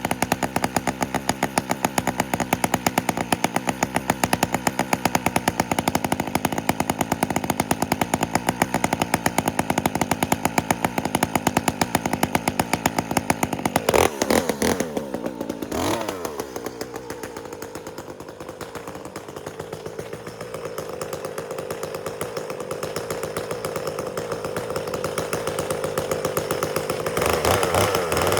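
Two-stroke chainsaw running with a fast, even pulse for about half the time. About halfway through it is revved up and down, then runs at a steadier pitch that slowly climbs, and revs louder near the end.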